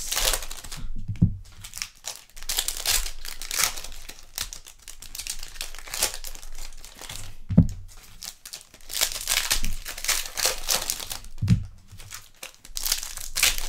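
Foil trading-card pack wrappers being torn open and crinkled, with cards handled, in a run of crackly rustling broken by a few dull thumps.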